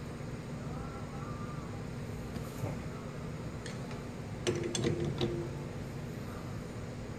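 Metal lathe running steadily with an even motor hum while a carbide tool cuts down a plastic part, with a short cluster of sharp clicks and a brief tone about four and a half seconds in.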